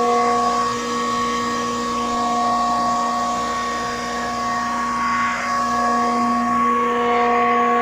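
High-stage compressor of an ammonia refrigeration system running after a restart: a fairly noisy, steady machine hum with a whine of several fixed tones.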